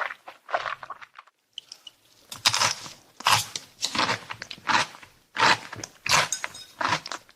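Close-miked chewing and crunching of food in the mouth, with a short pause about a second in and then steady chews roughly every 0.7 seconds.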